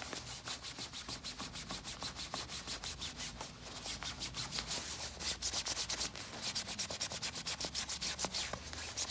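Quick, repeated scrubbing strokes of a cloth rag rubbed against the slick nylon shell of a quilted puffer jacket, working out a paint stain.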